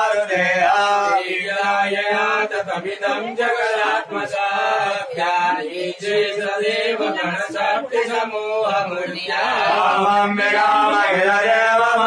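Hindu ritual mantras chanted in a continuous melodic recitation, as at a vastu puja.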